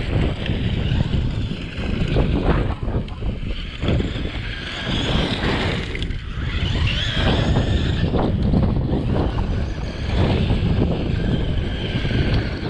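Wind buffeting the microphone, with the whine of a Traxxas brushless RC monster truck's electric motor rising and falling as it drives across gravel.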